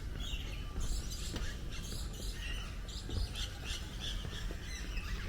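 Several birds chirping and calling, many short high chirps overlapping one another, with a steady low rumble underneath.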